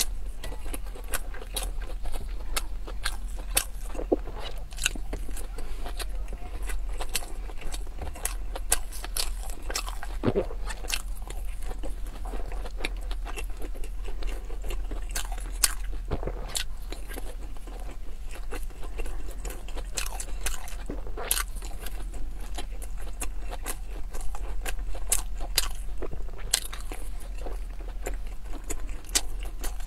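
Close-miked eating sounds of pan-fried dumplings being bitten into and chewed, a dense, uneven run of sharp wet mouth clicks and smacks.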